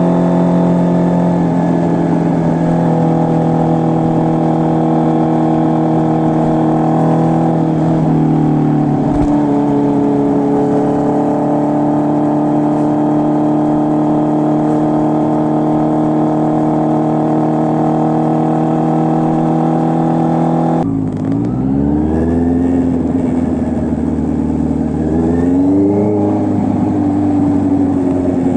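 Honda CB650R's inline-four engine through an SC Project full exhaust system, holding a steady engine speed for about twenty seconds with a slight drop in pitch about eight seconds in. Near the end the sound changes abruptly and the revs rise and fall twice.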